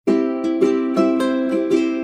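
Background music played on a plucked string instrument, a picked melody with a new note about three times a second.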